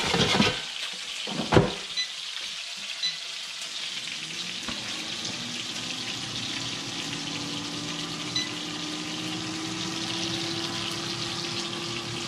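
Puffer fish fillets frying in hot oil in a cast-iron skillet: a steady sizzle. A couple of sharp knocks come in the first two seconds, the loudest about a second and a half in, and a faint hum slowly rises in pitch from about halfway.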